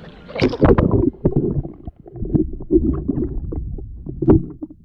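Camera microphone dunked underwater in the sea: a splash, then muffled underwater sloshing and gurgling with a few sharp knocks about a second in and near the end.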